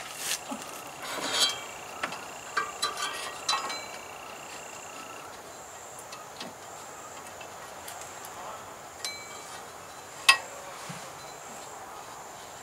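Light metallic clinks and taps from hands and parts at a Ford F-150's engine as the new serpentine belt is worked around the bottom pulley from underneath, mostly in the first few seconds. About ten seconds in there is one sharp click, the loudest sound.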